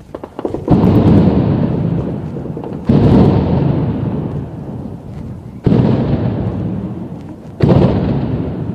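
Shelling: four heavy blasts about two to three seconds apart, each a sudden boom followed by a long rolling echo that fades away.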